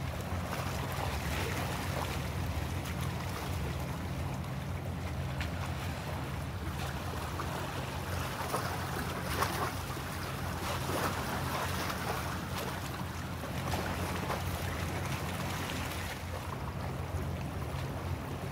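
Steady low hum of a ship's diesel engine across harbour water, over a haze of water and light wind noise, with a few faint knocks.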